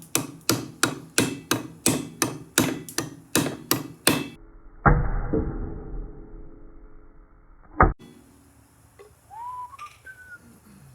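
A hammer striking a block set on a wedge, driving the wedge into the top of a new hatchet handle: a quick, even run of about three blows a second. Then one heavier blow rings on for a few seconds, and a single knock follows near the end.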